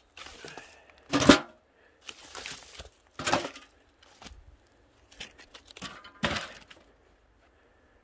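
Old firewood logs and loose bark being handled in a pile of dry leaves: a string of separate sharp cracks, knocks and rustles, the loudest about a second in.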